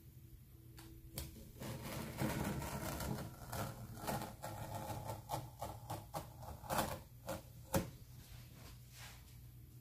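Handling noises from craft work on a tabletop: a run of scraping and rustling with many quick taps and clicks, the sharpest knock coming about three-quarters of the way through, then it settles.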